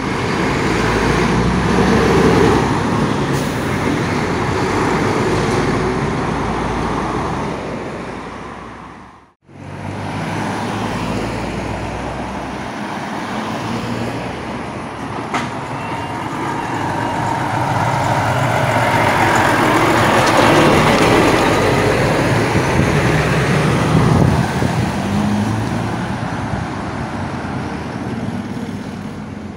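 Heavy lorries with diesel engines passing close by, amid road traffic noise. A livestock lorry goes by first. The sound drops out briefly about nine seconds in, and then a Volvo tractor unit hauling a portable cabin pulls past, loudest about two-thirds of the way through.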